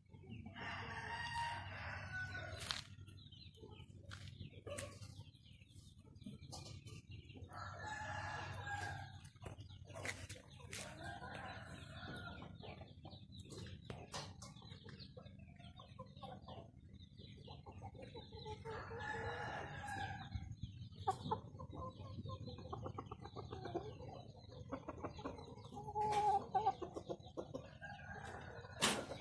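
Chickens calling: a rooster crowing and hens clucking in about five separate bouts, with scattered short sharp clicks in between.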